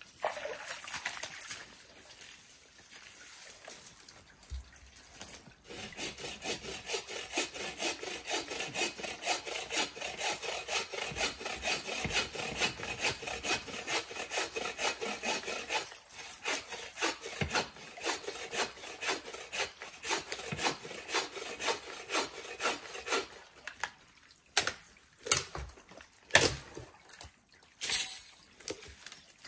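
Hand saw cutting through dry, hard old maple in quick, even back-and-forth strokes. The sawing stops, and a few separate sharp knocks follow near the end.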